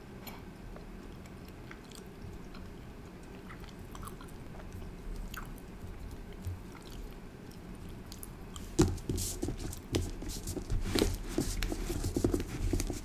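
Soft, sticky candy dough squeezed and stretched between the fingers close to the microphone, with faint scattered clicks. From about nine seconds in come louder, quick taps and pats as fingertips press the dough flat on the tabletop.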